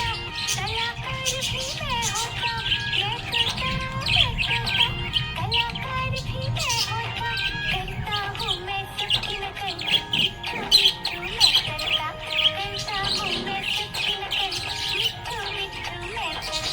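Budgerigar chirping and twittering in a dense run of quick chirps, over background music.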